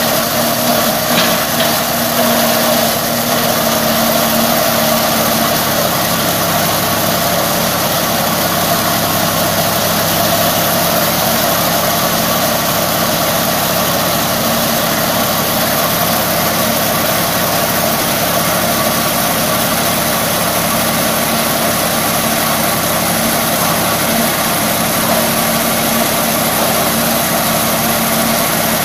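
Tractor's diesel engine running steadily at a constant speed.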